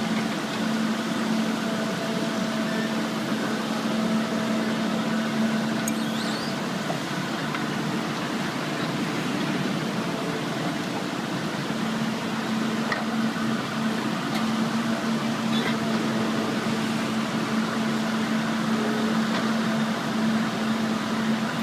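A heavy machine's engine running steadily, with a constant low hum that drops out for a few seconds about a third of the way through.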